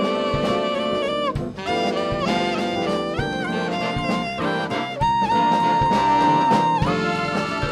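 Jazz band playing, saxophones and brass carrying the tune over drums, with one long held note in the middle.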